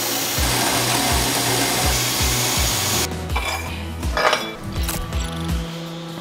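Metal-cutting bandsaw blade grinding through steel square tubing with a steady hiss that stops abruptly about three seconds in as the cut finishes. A few metallic clinks follow as the cut piece is handled, over background music with a steady beat.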